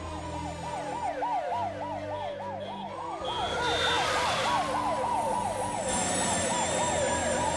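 Police car siren on a rapid yelp, its pitch sweeping up and down about four times a second, with a second siren tone gliding slowly down across the middle.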